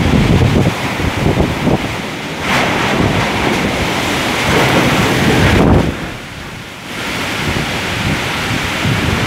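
Nor'wester storm: strong, gusting wind driving rain, with the gusts buffeting the microphone in a low rumble. The wind eases for about a second about two-thirds of the way in, then picks up again.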